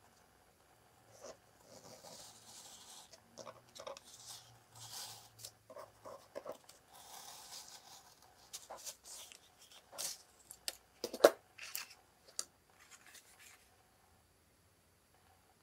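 Daiso compass circle cutter's blade scoring around black scrapbook paper on a cutting mat, in several scratchy strokes as it is turned. This is followed by a run of sharp clicks and taps as the cut circle and sheet are handled, the loudest about eleven seconds in.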